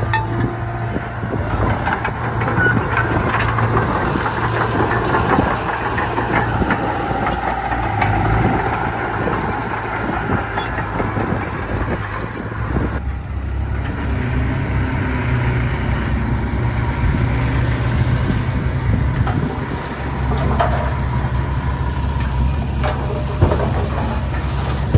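Heavy diesel engines of earthmoving machinery running steadily under work, with scattered knocks over the low rumble.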